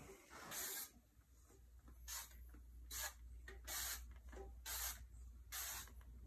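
Insecticide sprayer wand giving about six short hissing bursts of spray, each a fraction of a second long and spaced about a second apart, as residual bed-bug treatment is spot-applied into a dresser drawer's cracks and seams.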